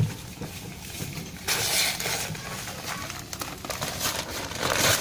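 Woven plastic cement sack rustling and scraping as it is shaken out and emptied onto the ground, with the powder spilling. The rustling starts suddenly about one and a half seconds in and is loudest near the end.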